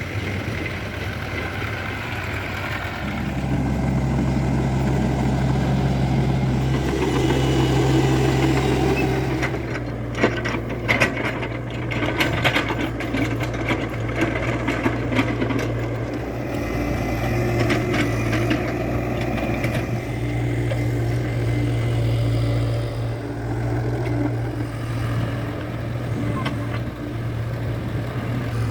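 Heavy diesel engines of a backhoe loader and farm tractors running steadily. About ten seconds in, several seconds of clattering knocks and thuds sound over the engines.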